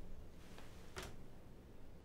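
A wooden chess piece set down on the board: one sharp click about a second in, over faint room tone.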